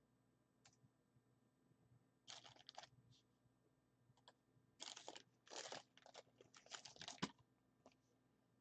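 Hands handling plastic trading-card packaging in short, quiet rustles: a few just after two seconds in, then a denser run between about five and seven seconds.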